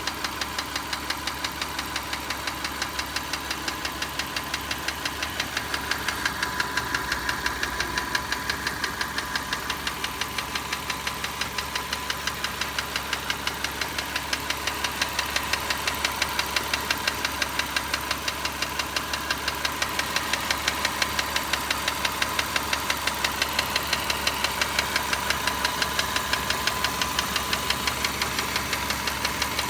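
Car engine running at idle with a quick, even ticking. Adjusting the valve clearances to spec has not cured the tick, and it does not fade when warm; the owner rules out piston slap and places it near the alternator or timing belt.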